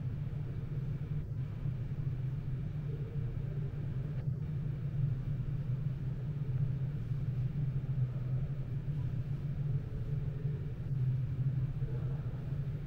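Steady low rumble with most of its energy deep in the bass and no distinct events.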